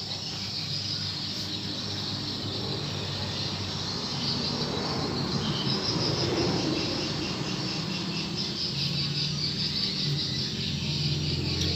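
Steady high-pitched insect chirring with a low, steady hum underneath.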